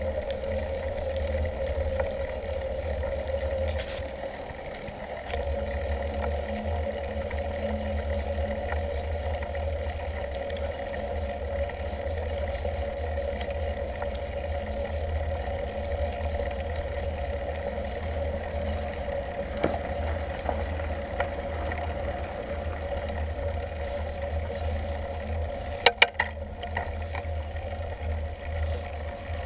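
Mountain bike rolling up an asphalt lane: wind rumbling on the handlebar camera's microphone over a steady hum from the bike's tyres on the tarmac, with a few sharp clicks near the end.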